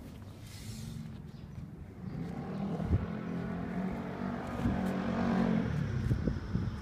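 A motor vehicle's engine running nearby, fading in about two seconds in and growing steadily louder, as if approaching.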